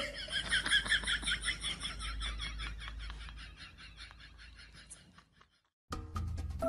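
Rapid run of short, high-pitched chirping calls, about six a second, fading away over about five seconds. After a brief silence, music starts near the end.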